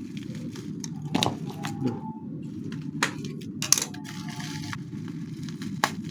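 Hard, many-layered parcel packaging being worked open: scattered crackles, with about four sharp cracks and a couple of brief squeaks, over a steady low hum.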